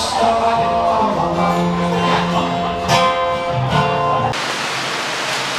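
Background music led by acoustic guitar, which cuts off abruptly about four seconds in, giving way to a steady hiss of background noise.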